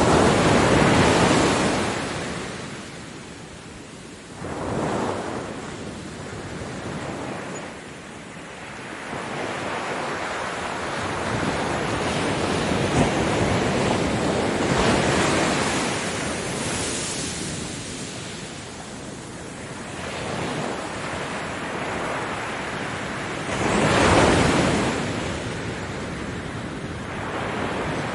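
Ocean waves breaking on a beach, the surf rising and falling in slow surges every several seconds, with the loudest break near the end.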